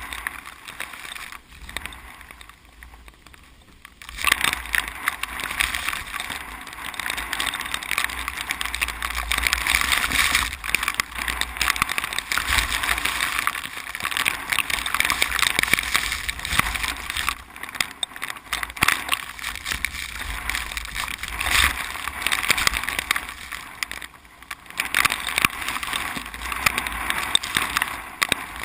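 Strong typhoon wind gusting, rushing and buffeting the microphone with a low rumble. It rises and falls, easing briefly near the start and again about 24 seconds in.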